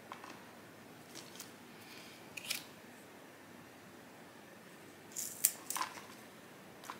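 Small hand pruning snips cutting through philodendron leaf stems: short, sharp snips every second or two, with a quick run of three or four about five seconds in.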